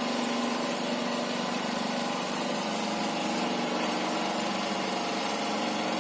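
Homemade machine's motor drive running steadily, a constant hum with a fast fine flutter.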